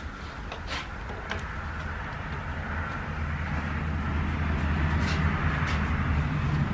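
Low engine hum that grows steadily louder, with a few faint clicks.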